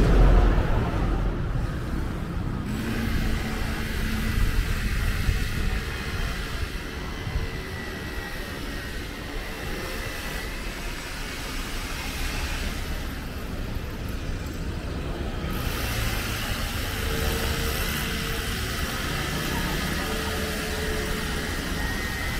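City road traffic: a vehicle passes close at the very start, its low rumble fading within the first second, then a steady hum of traffic. A brighter hiss comes in about two thirds of the way through.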